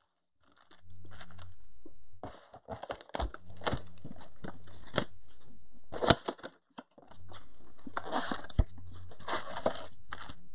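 Cardboard Topps Chrome blaster box being torn open and the foil-wrapped card packs inside shaken out and handled: crackly tearing, crinkling and rattling. A low steady hum cuts in and out behind it.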